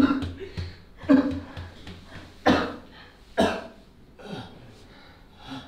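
A woman crying in short choked sobs and coughs, with two sharp, loud bursts about two and a half and three and a half seconds in, then growing quieter.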